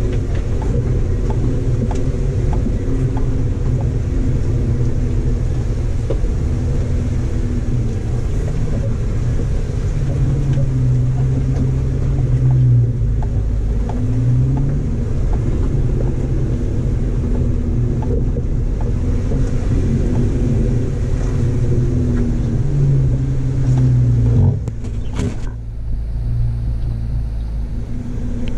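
Jeep Wrangler engine running at low speed with a steady low rumble while crawling over a rough gravel track, its pitch rising and falling a few times. Small ticks and crackles sit on top, and the sound drops in level about three quarters of the way through.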